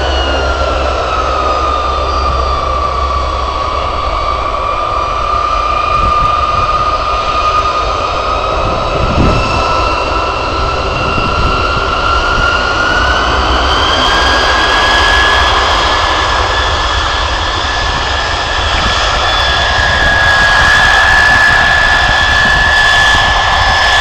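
A B-52 bomber's eight jet engines running as it taxis and turns on the runway: a steady rumble under a high whine that dips in pitch over the first few seconds, then rises about halfway through and holds.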